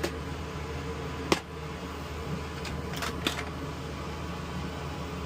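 A few light, sharp clicks and taps of small parts and storage boxes being handled, the loudest about a second in and two close together a little past the middle, over a steady low electrical hum.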